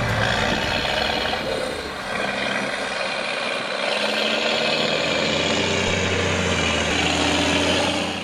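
Fendt 816 tractor's diesel engine working under load as it pulls a Quivogne Blackbear stubble cultivator, running steadily; a low engine hum grows stronger about halfway through as the tractor comes closer.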